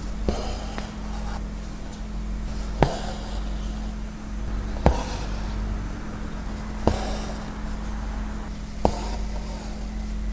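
Hand embroidery: a needle pierces fabric stretched in a hoop with a sharp tick about every two seconds, five times, each followed by the brief rasp of embroidery thread drawn through the cloth. A steady low hum lies underneath.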